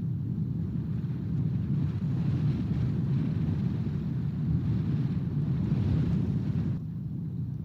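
Wind buffeting the outdoor nest camera's microphone: a steady low rumble, with a stronger gust adding a hiss through the middle that eases off suddenly about seven seconds in.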